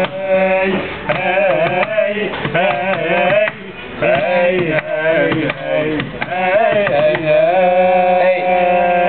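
Music: hand-drum strokes under a winding, ornamented melody line.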